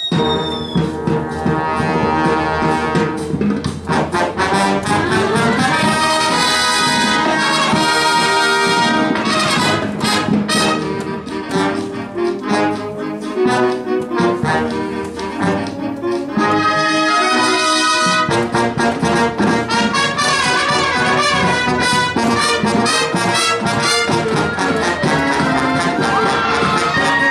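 High-school marching band playing a brass-led march: trumpets and other brass with flutes and clarinets over marching drums, growing fuller about two-thirds of the way through.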